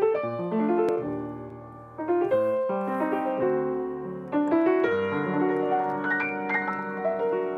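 Grand piano played solo: ringing chords and melody notes, with fresh chords struck about two seconds in and again a little past four seconds, left to sustain toward the end.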